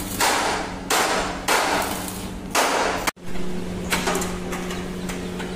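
Electric arc welding on a three-wheeler's steel body frame: four short bursts of crackling hiss in the first three seconds over a steady electrical hum. After an abrupt break about three seconds in, the hum goes on with fainter, weaker crackle.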